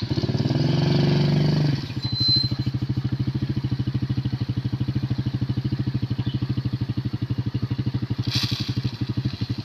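The motor tricycle's engine starts up and runs fast for under two seconds, its pitch falling. It then settles into a steady, evenly pulsing idle.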